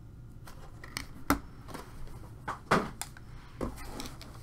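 Handling noise on a tabletop: a series of short clicks and knocks as a plastic card case and a cardboard trading-card box are set down and moved. The loudest knock comes about a second in.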